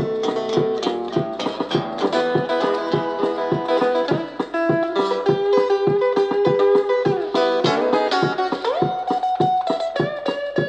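Instrumental solo on plucked strings in a country song: a quick run of picked notes over a strummed backing, with a note sliding upward about eight and a half seconds in.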